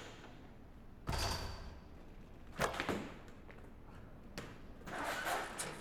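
A few sharp thuds and knocks, with a short rush of noise about a second in and a longer noisy stretch near the end.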